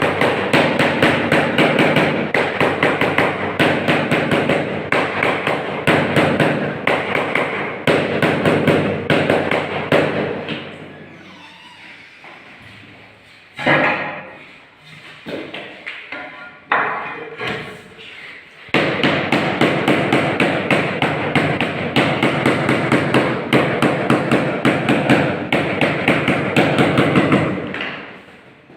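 Rapid repeated knocking, several strokes a second, in two long runs of about ten seconds each, with a quieter lull in between broken by a few single knocks.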